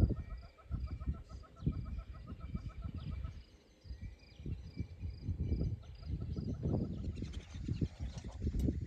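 Outdoor ambience: birds chirping in a quick, evenly repeated pattern for the first three seconds or so, over low, uneven rumbling noise.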